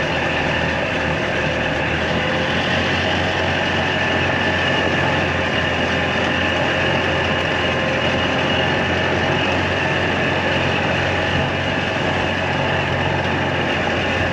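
Golf cart motor running at a steady cruise while the cart drives along a dirt trail.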